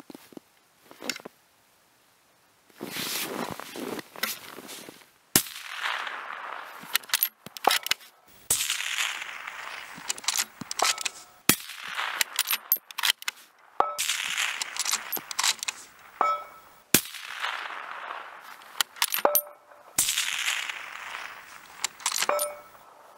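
Bolt-action rifle fired several times, each sharp crack followed by a fading echo lasting a second or two, with short metallic pings and clacks between shots as the bolt is cycled and cases are ejected.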